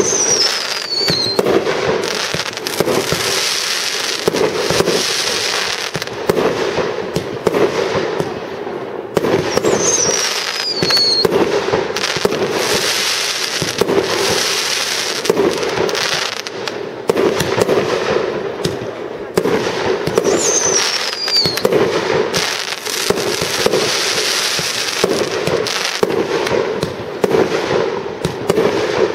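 Fireworks display: aerial shells bursting in a dense run of bangs and crackling. A high whistle falls in pitch about every ten seconds.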